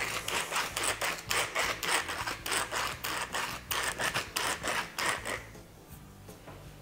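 Hand pepper mill grinding peppercorns: quick repeated twists grinding steadily, stopping about five and a half seconds in.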